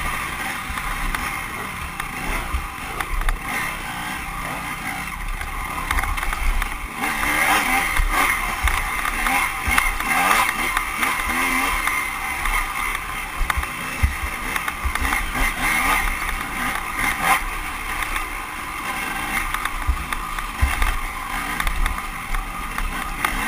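Off-road dirt bike engine heard from an onboard camera, revving up and down continuously as the bike rides a tight wooded trail, with low knocks and buffeting on the microphone.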